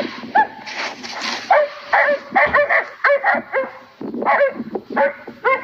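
Hunting dogs barking and yipping in quick, short, high-pitched calls, dropping off for about a second past the middle before starting up again.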